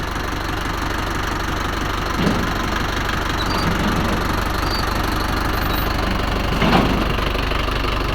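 Dump truck's engine idling steadily while the repaired hydraulic tipper is being lowered, with a short knock about two seconds in and a louder one near seven seconds.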